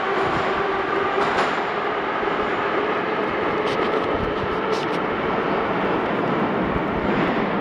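Moscow metro train running in the station: a steady rumble with a faint motor whine that fades out in the first couple of seconds, under the murmur of passengers.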